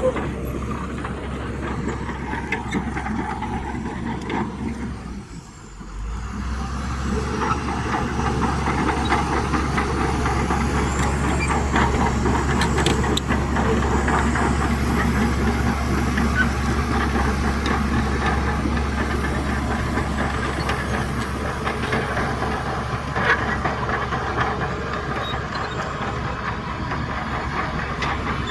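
Shantui DH17C2 crawler bulldozer running, its diesel engine giving a steady low rumble while the steel tracks clank and rattle. The sound drops away briefly about five seconds in, then comes back steady.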